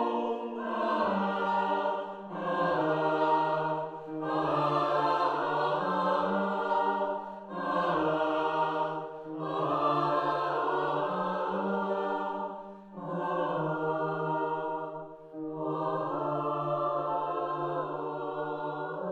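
Mixed-voice choir singing a slow choral arrangement of a Taiwanese campus folk song, in short phrases with brief breaks between them over a low held note.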